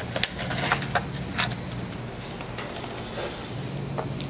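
Cup-noodle packaging being handled: the paper lid peeled back and the cup and its packets crinkling, with a few sharp clicks and taps spread through, over a steady low hum.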